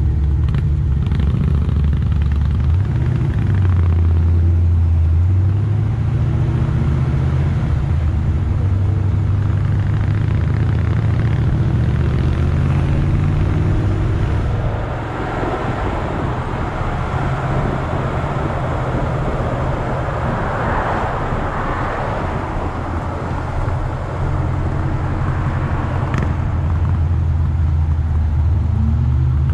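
Chevrolet Nova's engine running as the car drives, a steady low drone that rises briefly in pitch about three seconds in. From about halfway, road and wind hiss grows under the engine.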